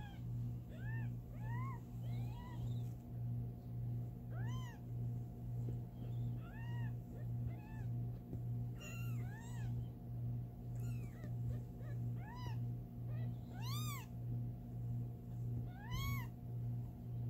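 Newborn kittens mewing: many short, high calls, each rising and falling in pitch, some a second or two apart, the loudest near the end. Under them runs a steady low hum that pulses about twice a second.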